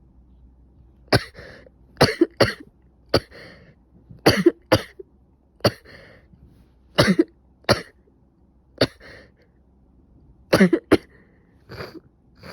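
A person coughing repeatedly: more than a dozen short, sharp coughs, mostly in clusters of two or three, starting about a second in. It is the cough of someone who has probably caught a cold.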